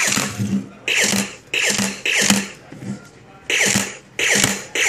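Electronic shot sound effects from a Nerf laser tag blaster's speaker as the trigger is pulled again and again: about six quick zaps, each a falling whistle over a burst of hiss, with a pause of about a second near the middle.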